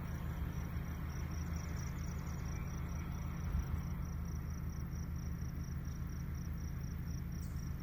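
Insects, likely crickets, chirping steadily at about three chirps a second, over a steady low hum.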